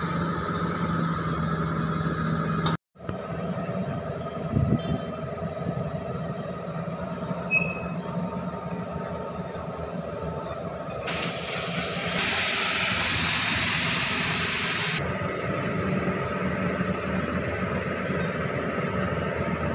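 Hitachi Zaxis 210-5G excavator's diesel engine running as the machine travels on its freshly joined steel tracks. A loud steady hiss sounds from about 11 to 15 seconds in.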